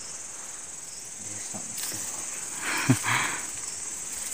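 Steady high-pitched drone of insects in the jungle undergrowth. About three seconds in, a brief rustle with a sharp click as brush or gear is handled.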